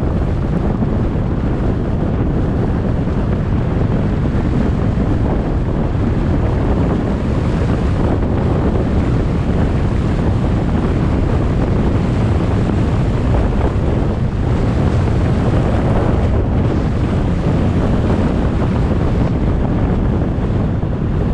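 Steady wind rush over the microphone of a GoPro action camera on a moving car, with road noise underneath.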